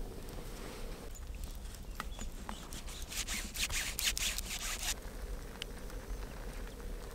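Small campfire of dry sticks crackling with scattered faint pops, then a denser run of crackling for about two seconds in the middle. A fly buzzes faintly in the first second.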